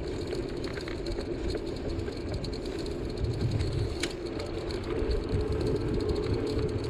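Steady running noise of a bicycle being ridden along a paved street, a low rumble and hum from the tyres and drive with the camera riding on the bike, and a single sharp click about four seconds in.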